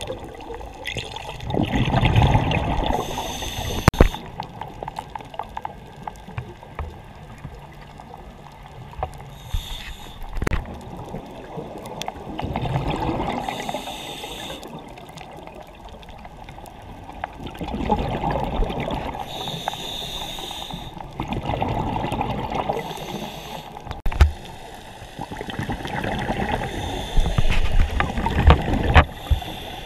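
Water gurgling and bubbling in irregular swells every few seconds, with a few sharp knocks.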